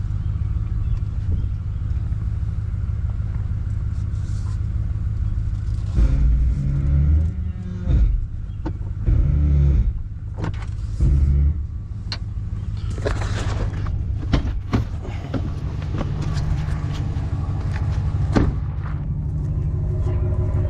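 Steady low rumble of engine and road noise inside a vehicle's cab while driving, with a few louder low surges about six to eleven seconds in.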